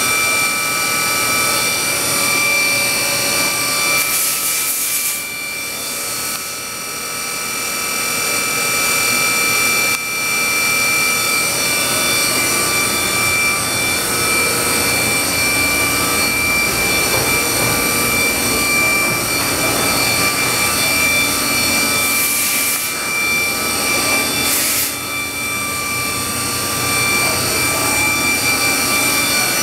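Steady mechanical whine of machine-shop equipment, with several constant high tones. Short bursts of hiss come about four seconds in and twice more past the twenty-two-second mark.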